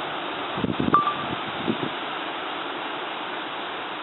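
Steady hiss of heavy rain and wind. A few low thumps come about a second in and again near two seconds, with a brief high ring at the first of them.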